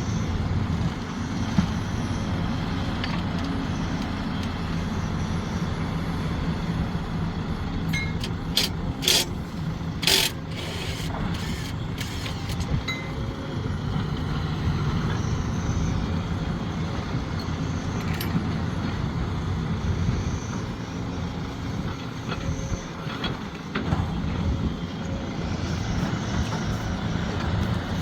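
Sumitomo SH370LHD-6 excavator's diesel engine running steadily under work, with a cluster of sharp knocks about a third of the way in.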